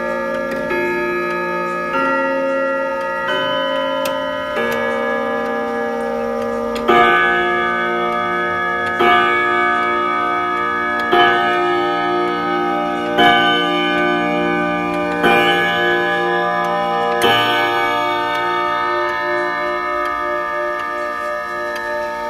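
Pendulum clock chiming on the hour: a short tune of single ringing notes, then six evenly spaced strokes about two seconds apart, each left ringing, with the clock ticking underneath.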